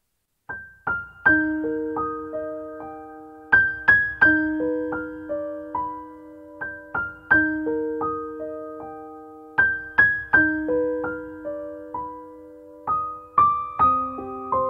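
Background music: solo piano playing a slow, gentle pattern of single notes that ring and fade, repeating a short phrase about every three seconds. It starts about half a second in, after a moment of silence.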